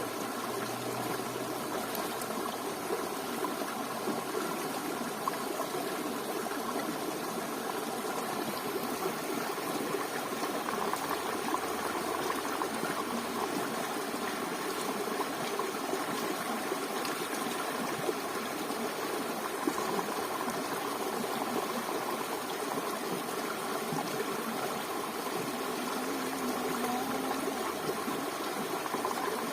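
Steady running water, even and unbroken throughout.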